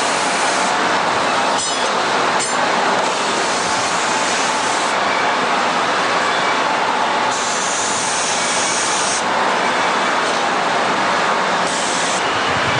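Steel plier heads being polished by hand against power-driven polishing machines: a loud, steady abrasive hiss over motor noise. The pitch of the hiss rises for a couple of seconds midway as a part is pressed on, and there are two brief scrapes near the start.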